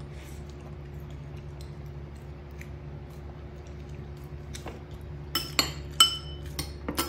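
A ceramic plate clinking and rattling on the table as a monkey paws at fruit pieces on it: several sharp, ringing clinks in the last two seconds, over a steady low hum.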